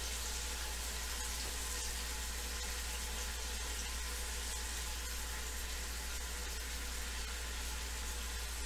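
Pork loin searing in the butter mixture in an Instant Pot on the sauté setting: a steady sizzle of meat browning, over a low hum.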